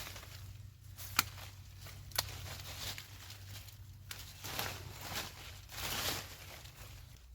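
Coffee-plant branches being pruned: two sharp snaps about a second apart, then leafy rustling as the cut branches are handled.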